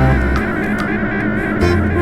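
Background music with a guitar and a steady beat.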